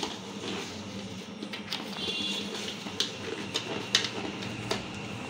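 Low room noise with a steady hum and a few faint light clicks.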